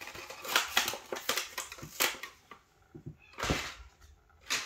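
Irregular crackling and clicking handling noises, with a louder rustle about three and a half seconds in.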